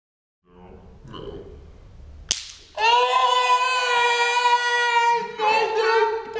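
A sharp snap, then a long, loud, high vocal cry held on one pitch that wavers and breaks up near the end: a woman's yelp at a stun gun shock, slowed down in a slow-motion replay.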